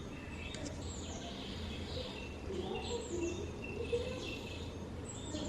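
Birds chirping faintly: repeated short high chirps and quick falling whistles, over a steady low hum.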